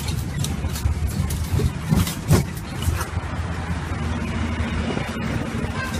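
Riding in the open carriage of a road tourist train: steady engine and road rumble with scattered rattling knocks, while a city bus passes close alongside.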